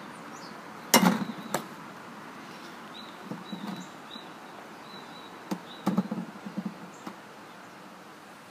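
Plastic bat hitting wiffle balls off a batting tee: two sharp knocks about five seconds apart, the first the loudest. Each is followed by lighter clatters of plastic.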